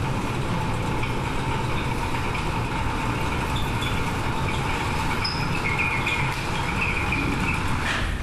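Steady rumble and hiss like distant traffic, a city ambience, with a few faint short high tones in the second half.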